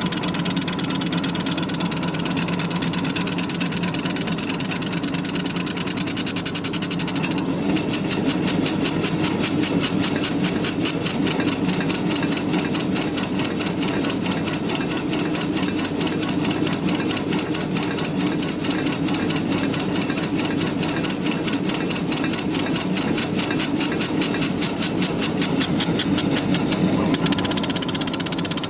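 Laser cutter running a job: a steady hum from its fans, and from about seven seconds in until shortly before the end a fast, regular back-and-forth rattle as the head scans across the workpiece.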